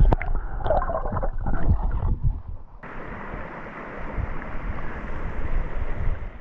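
Water sloshing and splashing with wind buffeting the microphone, then, after a sudden switch about three seconds in, a steady rush of flowing river water.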